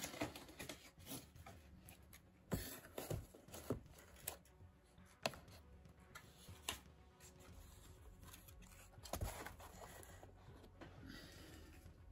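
Scattered light taps, knocks and rustles of small card model set pieces being handled and set down on a miniature set, with a handful of sharper taps and a soft rustle near the end.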